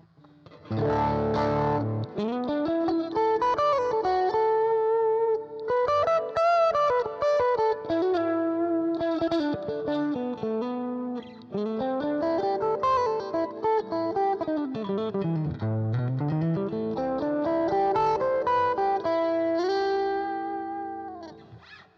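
Stratocaster electric guitar played through a Roland Blues Cube Hot transistor amplifier with its boost switched on and the volume raised, giving an overdriven tone. A strummed chord about a second in, then a single-note line with slides and bends, the last note ringing out and fading near the end.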